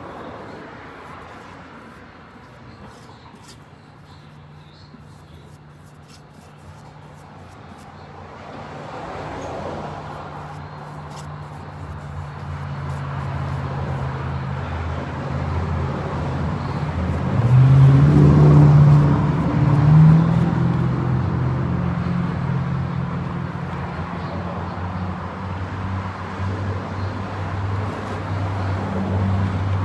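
Low, steady engine hum that builds up over the first half, is loudest about 18 to 20 seconds in with a slight rise in pitch, then holds.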